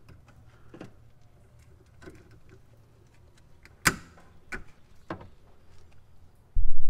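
Pliers working a metal band clamp on a power steering rack's rubber bellows boot: faint scrapes and clicks, with one sharp metallic click about four seconds in and two smaller ones after it. A sudden loud low rumble starts near the end.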